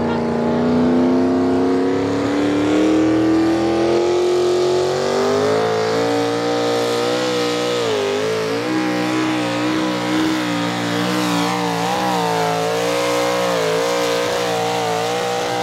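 Small-block V8 of a modified pulling tractor running hard under load as it drags the weight-transfer sled. The engine climbs steadily in pitch over the first five seconds, then holds near full revs, dipping and wavering briefly a few times later on.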